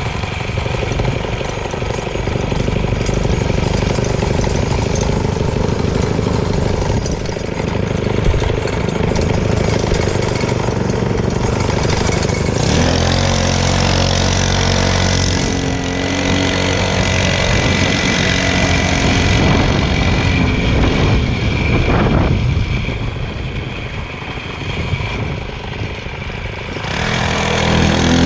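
Motorcycle engine running continuously. From about halfway through it settles into a steady low note, and there is a brief rise and fall in pitch a few seconds later.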